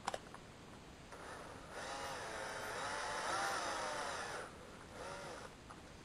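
Small cordless drill-driver motor running for about three seconds, its pitch wavering with the trigger, then a second short burst, as the chuck is spun shut onto a small drill bit.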